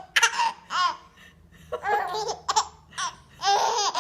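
A baby laughing hard in several bursts of high-pitched giggles, the longest peal near the end.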